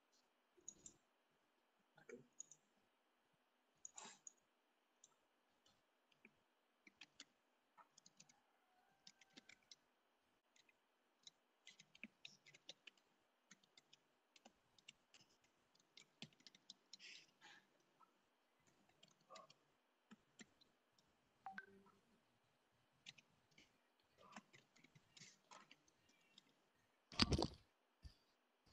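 Faint, scattered clicks and taps of a computer mouse and keyboard, with one louder knock near the end.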